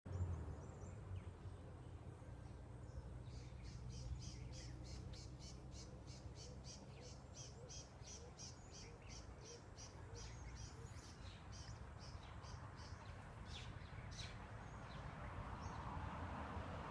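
A bird calling in a long, even series of short, high chirps, about two or three a second, that stops a few seconds before the end. Underneath is a faint low rumble that grows a little louder near the end.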